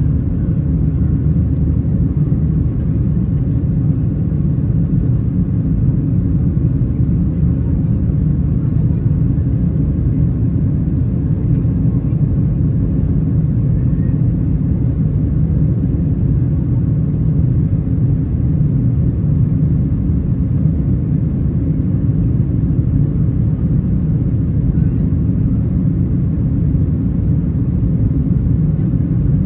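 Steady cabin noise inside a Boeing 737-800 climbing after takeoff: the low rumble of its CFM56-7B engines mixed with airflow over the fuselage.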